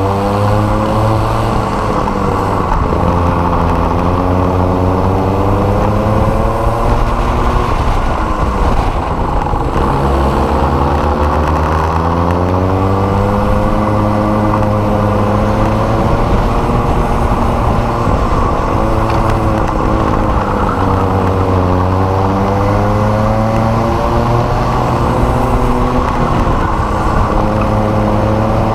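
Rotax Micro Max 125 cc two-stroke kart engine at racing speed. Its pitch drops into each corner and climbs again on the straights, several times over, above a steady low rumble.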